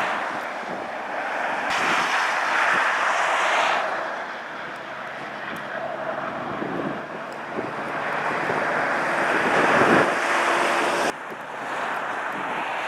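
Traffic noise on a snowy highway: vehicles swell past with a tyre-and-wind whoosh, twice, over a steady background rush, with wind on the microphone. The sound drops off abruptly near the end.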